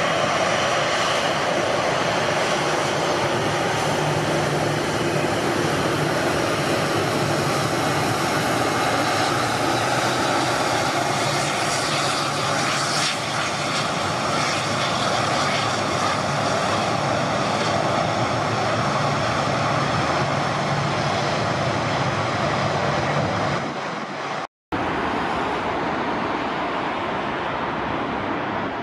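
Jet airliner engines running, a steady loud rush with a few held whining tones. Near the end it cuts off abruptly, and after a moment's silence a duller rushing sound follows.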